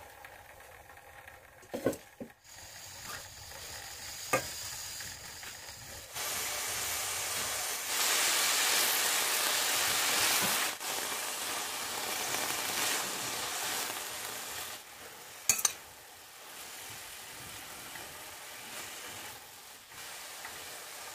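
Chopped kale sizzling in hot coconut oil in a stainless steel pan while being stirred with a metal spoon. The sizzle comes in loud about six seconds in and dies down over the following seconds. There are a few sharp knocks of the spoon against the pan.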